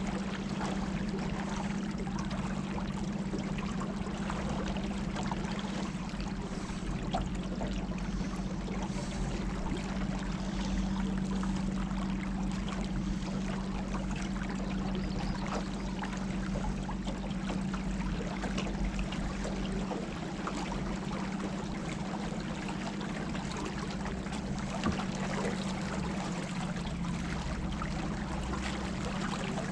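River water rushing and trickling around a small boat moving with the current, with a steady low hum underneath.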